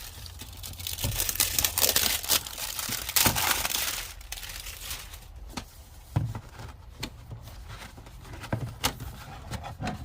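Plastic crinkling and rustling for the first four seconds, then scattered clicks and knocks as a socket set and its plastic case are handled.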